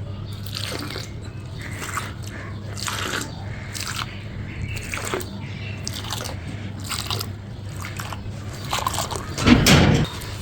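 A brittle, crunchy crumble block being crushed, giving a crisp crunch about once a second over a low steady hum. A louder, heavier crunch comes near the end.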